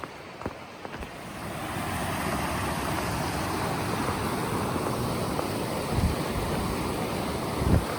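Steady rushing of a mountain creek that swells in over the first couple of seconds, after a few footsteps at the start, with two low thumps later on.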